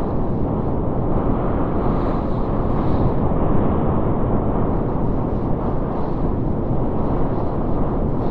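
Blizzard wind: a steady, deep rumbling rush of storm wind with gusts that briefly bring in a higher hiss.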